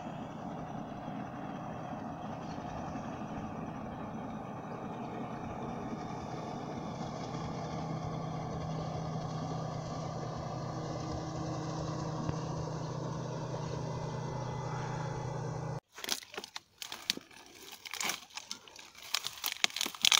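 Motorboat engine running steadily as the boat passes by on the river, its hum getting a little stronger past the middle. It cuts off abruptly near the end, giving way to the crunching and rustling of dry brush and twigs.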